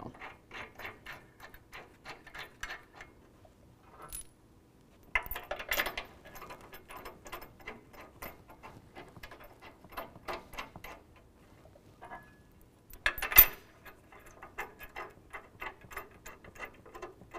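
Steel bolts with washers and lock washers clinking against a steel bumper bracket as they are set in their holes and threaded in by hand: a run of small irregular metallic ticks and clicks, with a louder clank about thirteen seconds in.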